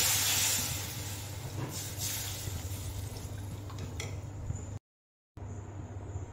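Water poured from a steel tumbler into a hot kadhai of fried masala, splashing and hissing loudest in the first second, followed by a steel spoon stirring the watery gravy in the pan. The sound cuts out briefly near the end.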